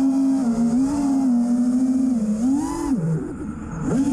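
Brushless motors of an FPV freestyle quadcopter running as one steady whine that rises and falls in pitch with the throttle. It drops away briefly about three seconds in, then spools back up near the end.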